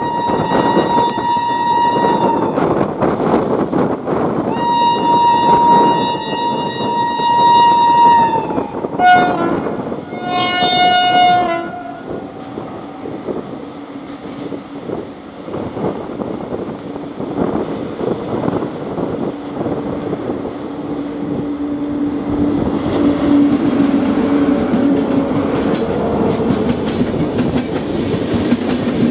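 WAP-7 electric locomotive sounding its horn: two long blasts, then two shorter, lower-pitched blasts about nine and ten seconds in. After that comes the rumble and clickety-clack of the passenger train passing close, louder and hissier near the end as the coaches go by.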